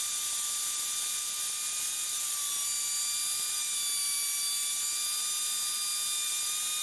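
Steady electronic hiss with a faint, slightly wavering whine on the Cessna 152's headset and intercom audio feed, the piston engine itself barely coming through.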